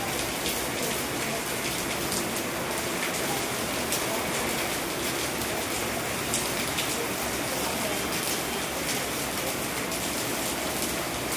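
Heavy rain falling steadily: a dense, even hiss scattered with many sharp drop hits.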